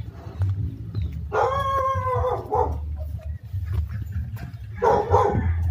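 Animal calls: one drawn-out call with a clear tone that rises and falls slightly, starting about a second in, then a rougher call near the end, over a steady low rumble.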